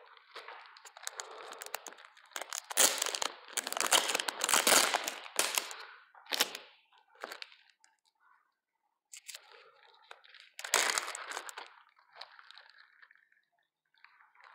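Plastic zip-top bags crinkling and rustling in irregular bursts as they are handled and opened, with a short lull past the middle.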